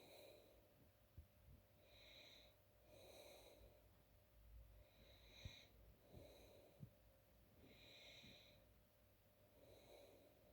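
A person with hiccups breathing faintly, with a few short, sharp hiccups between the breaths.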